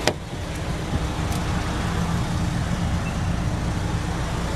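A car's rear door latch clicks once as the door is pulled open. A steady low rumble runs underneath.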